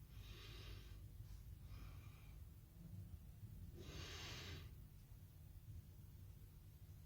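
Near silence: a faint low hum with three soft breaths close to the microphone, the loudest about four seconds in.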